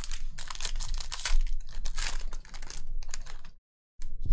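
Foil wrapper of a Panini Prizm football hobby pack crinkling and tearing as it is ripped open by hand, a dense crackle that breaks off briefly near the end and then starts again.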